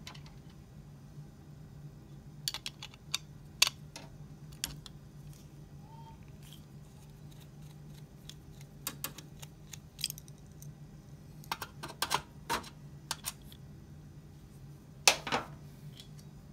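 Scattered light clicks and taps of a PCIe Wi-Fi card and its metal bracket and screws being handled, over a faint steady low hum; the loudest clicks come about a third of the way in, around the middle and near the end.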